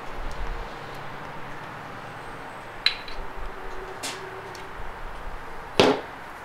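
Metal servo parts of a 4L60E transmission's 2-4 apply servo, piston and cover, clicking against each other as they are taken apart by hand: three short clicks, the loudest near the end, over a low steady background hum.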